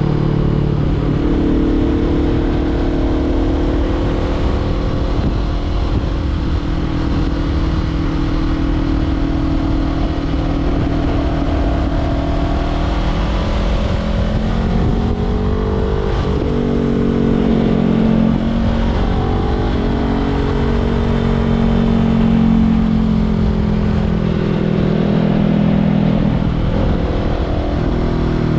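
Honda CBR500R's parallel-twin engine through a LeoVince LV-10 slip-on exhaust, being ridden under load: the engine note holds fairly steady, dips about halfway through, climbs again and falls away near the end, over a steady rush of wind noise.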